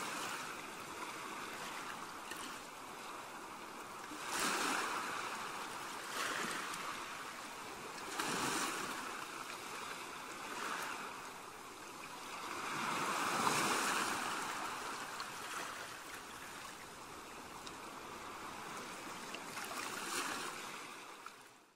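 Small sea waves washing onto the shore, the surf swelling and falling back every few seconds.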